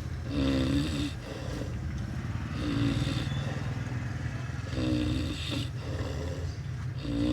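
A person snoring in a vehicle: four snores about two seconds apart, each a short pitched buzz, over a steady low rumble.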